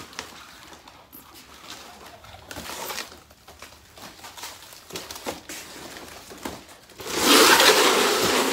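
Packing foam and cardboard rustling, with scattered light knocks, as a rolled car side awning in its fabric bag is pulled out of its shipping box. About seven seconds in comes a louder, steady rustling rush lasting about a second and a half.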